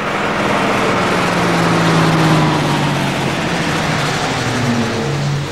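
Road traffic: a Mercedes-Benz truck driving past, then cars, with a steady engine hum that slowly falls in pitch as they go by.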